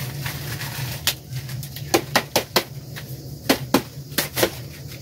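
Dry corn husks and ears of maize being handled and husked by hand: a string of about eight sharp crackles and snaps, uneven in spacing, over a steady low hum.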